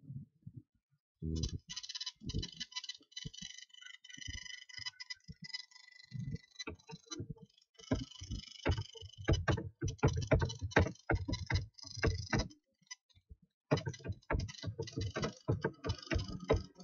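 Computer keyboard typing: sharp keystroke clicks, scattered at first and then in quick runs, with a short pause a little past the middle. A faint high hiss sits behind them.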